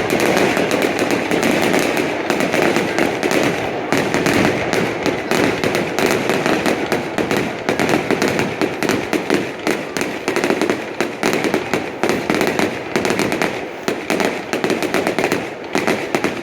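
Fireworks display: a dense, unbroken barrage of rapid crackles and bangs.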